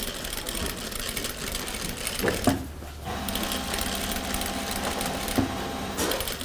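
Industrial sewing machine stitching a spiral, running in stops and starts as the fabric is turned. A steady hum sets in about three seconds in, with a few sharp clicks.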